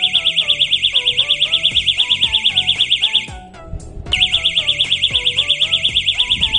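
Electronic fishing bite alarm sounding a rapid warbling beep, about a dozen pulses a second, set off by a pull on the fishing line. It stops about three seconds in and starts again about a second later. Background music plays underneath.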